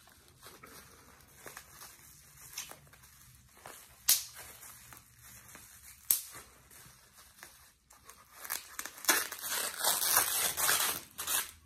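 Wrapping around a small makeup palette being handled, torn and crumpled by hand: faint rustling with two sharp clicks about four and six seconds in, then a louder run of crackling, tearing rustle near the end.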